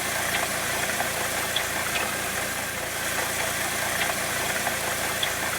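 Chevrolet Cobalt 1.8 engine idling with a steady bearing noise from the front of the engine, with a few faint ticks. The owner suspects a failed water pump or pulley bearing.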